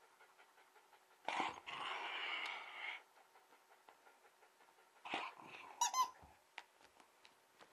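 Jack Russell Terrier chewing a snowman squeaky toy, squeezing out a long squeak about a second in and shorter squeaks around five to six seconds in, with small clicks of teeth on the toy between them.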